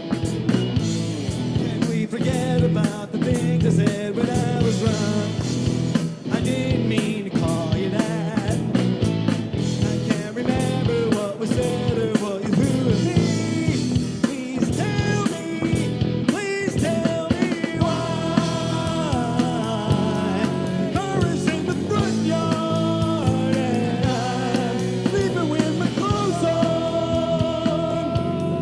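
Rock music played by a band, with drum kit and guitar.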